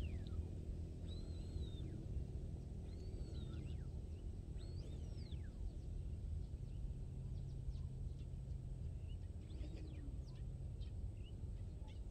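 Birds calling: about three arching, whistled calls that rise and fall in the first half, then a run of short, sharp chirps near the end, over a steady low background noise.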